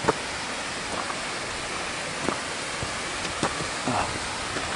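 Steady rushing splash of a small waterfall on a low-flowing mountain creek, with a few light knocks, the sharpest just at the start.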